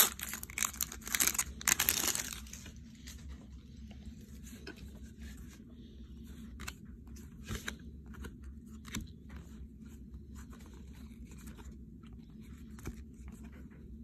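Foil wrapper of a retail baseball card pack being torn open and crinkled for about two seconds. After that come faint scattered clicks and slides as the cards are thumbed from one hand to the other.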